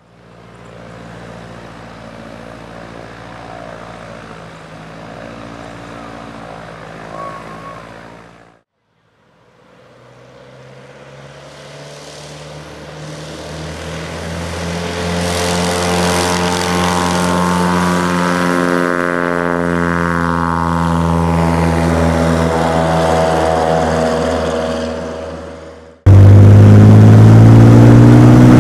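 Light single-engine propeller airplanes at takeoff power. A steady, fairly faint engine runs for about eight seconds, then after a short break a high-wing taildragger's engine grows louder and drops in pitch as it climbs past. Near the end it cuts to a much louder engine heard from inside a cockpit at full power on the takeoff roll.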